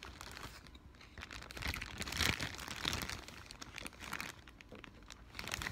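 Crinkling and rustling of food packaging being handled, loudest in the middle, with a few sharp clicks later on.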